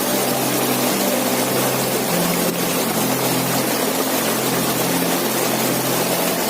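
Waterfall: a steady, unbroken rush of falling water, with a low hum of a few steady tones underneath that shift every second or two.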